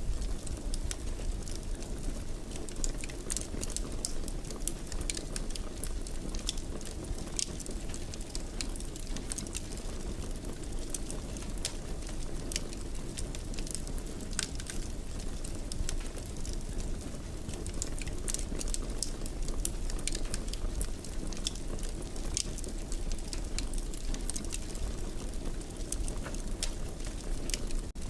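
Wood fire in a fireplace crackling: a steady low rumble of flames with frequent irregular sharp pops and snaps.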